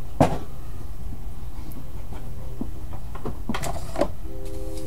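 Cardboard trading-card boxes handled on a desk: a sharp knock at the start, then a few lighter knocks and scrapes, over a steady low hum.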